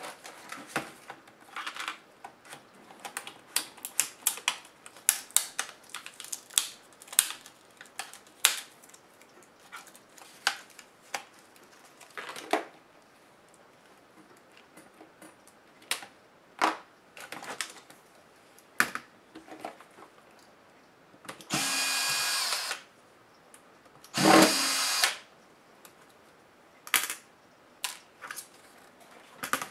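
Small clicks and knocks of metal parts and an LCD panel being handled, then a cordless drill-driver run in two short bursts of about a second each, a couple of seconds apart, past the middle.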